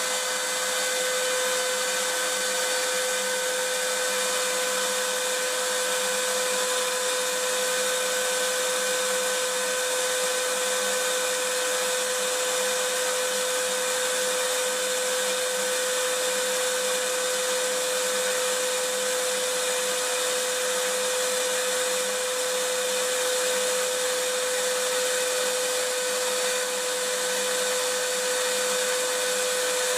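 Vacuum cleaner running continuously: a steady rushing whoosh with a constant motor hum, unchanging throughout.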